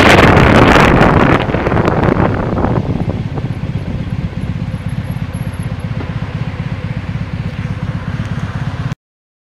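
Wind rushing and buffeting on the microphone of a moving vehicle, with a steady low engine rumble underneath; the wind noise eases off about a second and a half in, leaving mostly the rumble. The sound cuts off abruptly shortly before the end.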